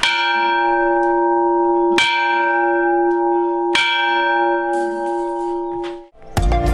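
Small church bell rung by a cord tied to its clapper: three strikes about two seconds apart, each ringing on with a clear chord of steady tones. The ringing is cut off abruptly near the end.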